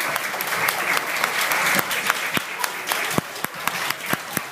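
Audience applauding in a large room: many hands clapping steadily, with a few voices mixed in.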